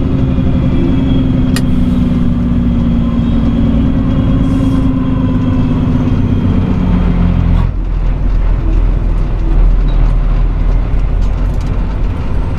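A straight truck's engine and road noise, heard from inside the cab, running steadily. About two-thirds of the way in the engine note drops away to a lower rumble as the truck slows for a turn. There is a single sharp click about a second and a half in.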